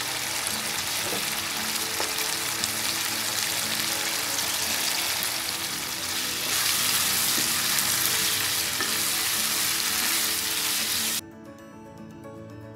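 Chicken and green chillies sizzling in a wok over a raised flame while being stirred with a wooden spatula. The sizzle gets louder about halfway through, then cuts off suddenly near the end, leaving soft background music.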